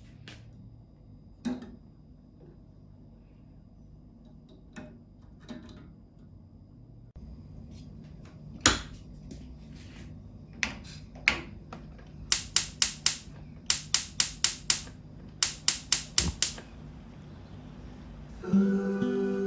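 Sharp clicks and knocks of kitchen work. There are scattered single taps, then three quick runs of about five sharp taps each, in the second half. Acoustic guitar music starts near the end.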